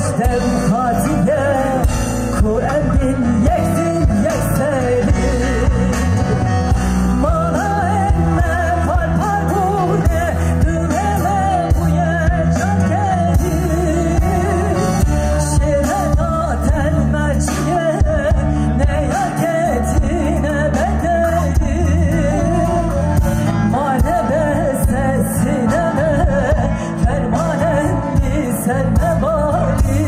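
Live concert music: a singer's wavering melody over a full band with steady bass.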